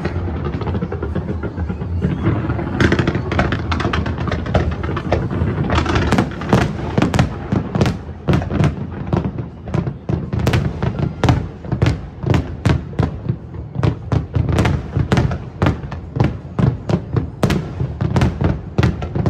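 Aerial firework shells bursting in rapid succession over a continuous low rumble. The first few seconds are a dense, crackling barrage; after that the booms come as distinct sharp reports, about two a second.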